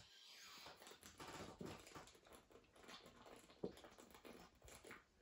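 Faint gulping and swallowing as a beer is drunk straight from a glass bottle, with a small sharp tick about three and a half seconds in.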